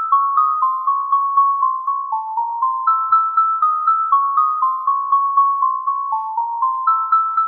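Music: a high, bell-like melody of quick struck notes, about four a second, played on tuned mallet percussion. The same four-second phrase loops over and over.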